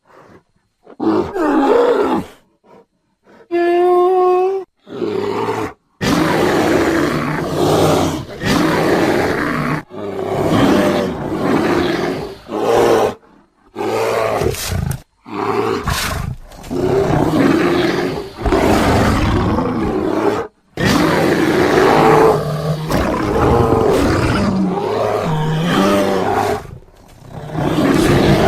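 Sound-effect roars and growls of a sabre-toothed bear creature, made by layering grizzly bear, black bear, smilodon, King Kong and monster roars. They come as a string of loud roars separated by brief pauses, with one higher, clearer-pitched call about four seconds in.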